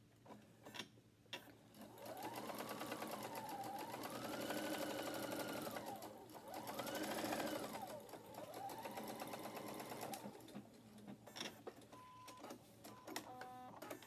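Electric sewing machine stitching a seam, the motor speeding up and slowing down several times over about eight seconds. A few sharp clicks come before the stitching and again after it stops.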